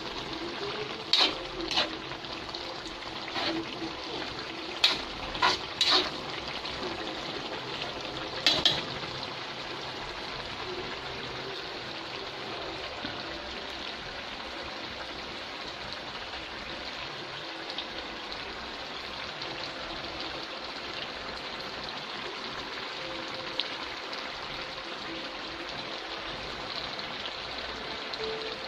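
Coconut milk with cassava leaves simmering and bubbling steadily in a metal pot. A stirring utensil knocks and scrapes against the pot several times in the first nine seconds or so.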